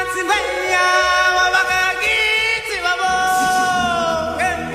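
Background music: one voice singing long, held notes that slide up and down between them, with little or no accompaniment. The longest note comes about three seconds in, drifting slightly down before a quick slide up near the end.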